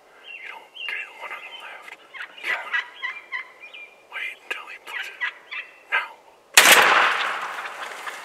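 Merriam's wild turkey gobblers gobbling over and over. Then a single shotgun blast from a turkey load about six and a half seconds in, ringing out for over a second as a gobbler is shot.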